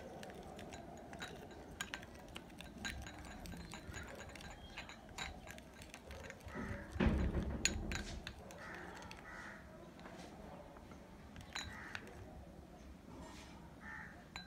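Fingers mixing neem powder and a little water into a paste in a small white dish: scattered faint clicks and taps of fingers against the dish, with a louder handling bump about seven seconds in.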